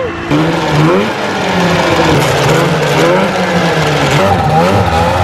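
Polaris Indy 500 snowmobile's two-stroke twin running and being revved up and down, its track spinning. The engine has just been brought back to life after years of sitting, with freshly cleaned carburettors.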